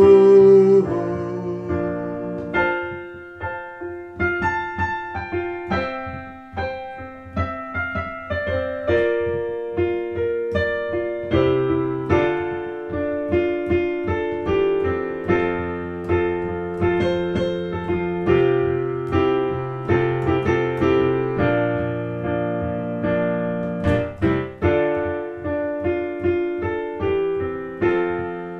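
Solo piano playing a slow, chordal instrumental interlude of a worship song: sustained chords under a simple melody, with no singing.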